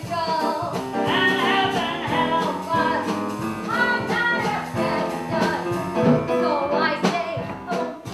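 Singing with instrumental accompaniment.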